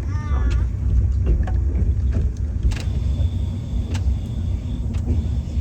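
Low steady rumble of a train, with a few faint clicks and a thin steady whine for a couple of seconds in the middle.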